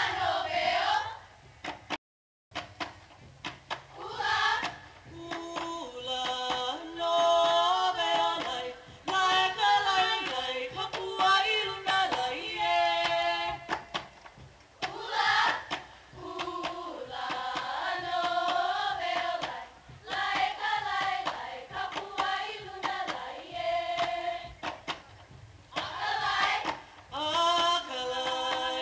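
Voices chanting a Hawaiian mele for hula kahiko, holding long wavering notes in phrases, with sharp percussive strikes throughout. The sound cuts out completely for a moment about two seconds in.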